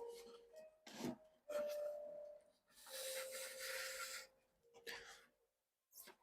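Faint scraping and rubbing of small hand work, several short strokes with a longer hissing scrape about three seconds in.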